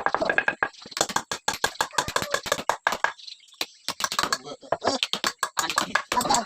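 Rapid, irregular clicks and knocks, several a second, with voices mixed in.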